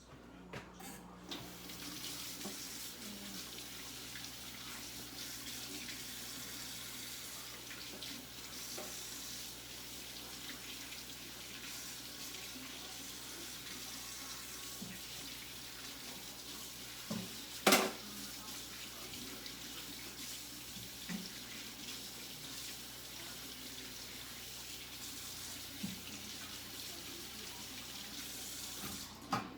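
Water running steadily from a kitchen tap into a sink, turned on about a second in and off just before the end, with one sharp knock partway through.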